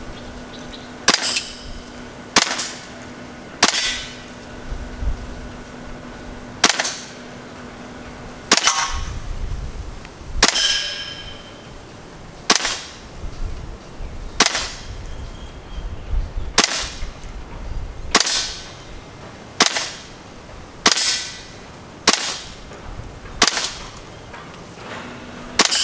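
WE SCAR gas-blowback airsoft rifle fired in single shots: about fifteen sharp pops at uneven gaps of one to three seconds, with no hit on the cans among them.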